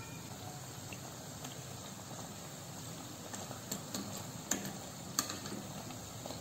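Breaded potato balls deep-frying in hot oil, with a steady sizzle. In the second half a wire skimmer clicks against the pot and the balls several times.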